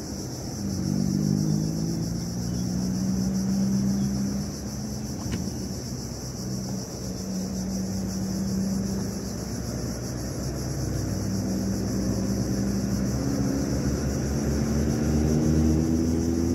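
An engine drone over a low rumble, its pitch wandering slowly and rising toward the end.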